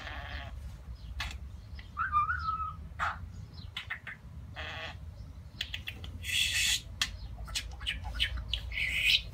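Pet budgerigar chattering: short chirps and clicks, a brief warble about two seconds in, and harsh scratchy squawks near the middle and again near the end.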